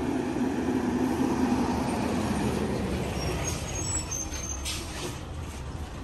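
A diesel bus running past close by on the road, its engine hum loudest in the first couple of seconds and then fading away.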